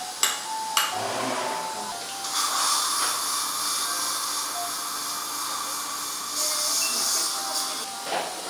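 Two sharp metal taps in the first second, from a mallet on an osteotome. From about two seconds in, a surgical implant handpiece runs steadily with a hiss of irrigation spray for about five seconds while driving the dental implant into the bone, then stops.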